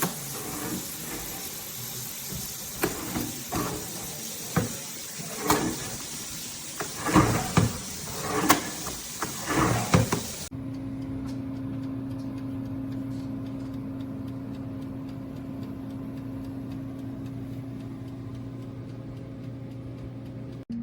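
Knocks and clatter of the countertop oven being handled, like a door or tray opening and closing, for about ten seconds. Then a sudden change to the Our Place Wonder Oven running with a steady low hum.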